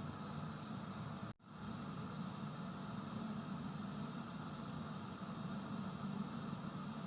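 Gas heater hissing steadily, with a low hum under the hiss. The sound cuts out for a split second about a second and a half in, then carries on unchanged.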